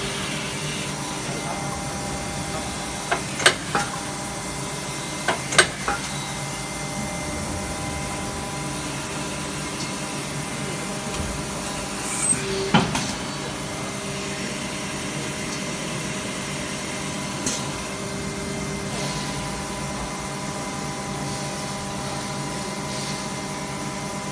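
Injection moulding machine running a cable tie mould: a steady machine hum with several level tones. Sharp clacks come a few seconds in, again about 13 seconds in and once more near 17 seconds.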